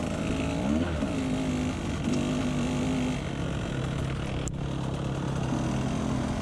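Husqvarna TE 150 two-stroke dirt bike engine running at low speed. It revs up and back down briefly about a second in, then holds a steady low pitch. One sharp click comes about four and a half seconds in.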